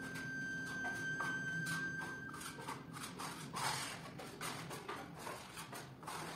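Steel plastering trowel scraping and smoothing plaster on a wall in a series of irregular strokes. A single held musical note runs under the first few seconds and stops.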